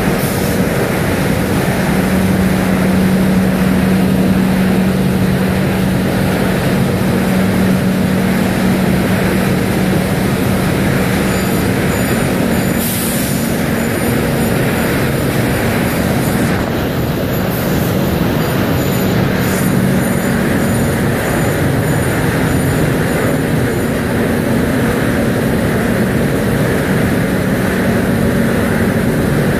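Ward rotary die cutter line running in production: a loud, steady machine din with a constant low hum, and faint rapid ticking in the middle.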